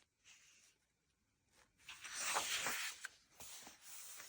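Magazine pages being turned by hand: a paper swish about two seconds in, then a fainter rustle of paper.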